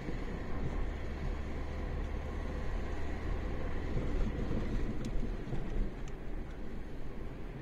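A car running on the road, a steady engine and road hum with a deeper rumble that eases off about five seconds in, and a few faint clicks.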